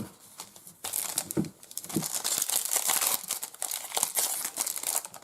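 Plastic foil trading-card pack wrapper being torn open and crinkled in the hands: a dense crackling that starts about a second in and goes on for about four seconds, with a few soft knocks.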